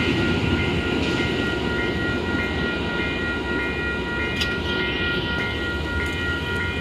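Grade-crossing warning bells ringing, with a steady high tone and a second tone pulsing about twice a second, over the low rumble of an MBTA commuter train running away from the crossing.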